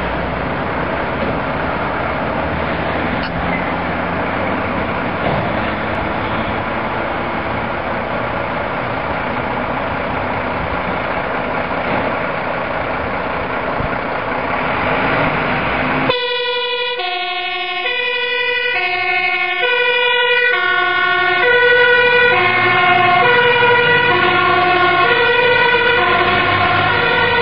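Mercedes-Benz fire engine's diesel engine running loud and steady. About two-thirds of the way through, this gives way suddenly to the truck's two-tone siren, alternating between a high and a low note.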